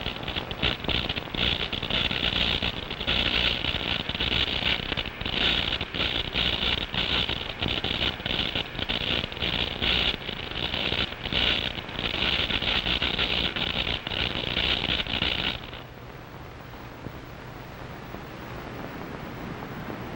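A harsh, high crackling electronic buzz, flickering rapidly. It cuts off suddenly about fifteen seconds in, leaving the steady hiss of surf.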